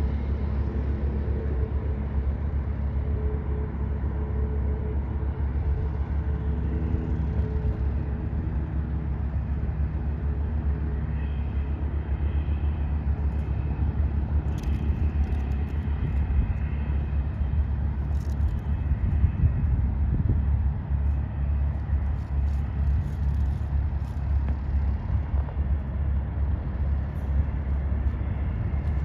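Aircraft engine noise on the airfield: a steady deep rumble, with a high turbine whine that comes in about a third of the way through and fades out later.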